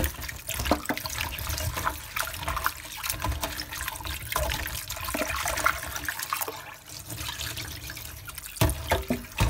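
Cold tap water running into a bowl while gloved hands swish and rinse raw shell-on king prawns, with splashing throughout and a few sharper knocks near the end.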